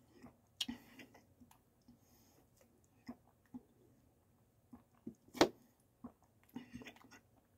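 A person drinking from a plastic bottle: faint swallows and small mouth and bottle clicks, with one sharper click about five seconds in.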